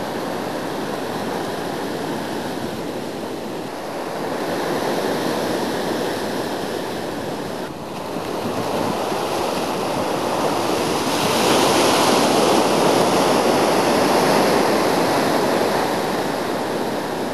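Ocean surf breaking and washing in: a steady rushing hiss that swells louder about two-thirds of the way through, then eases.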